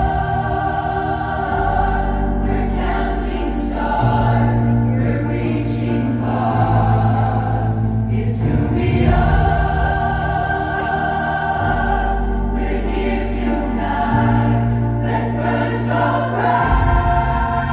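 Choir singing long sustained chords over low bass notes that change every couple of seconds.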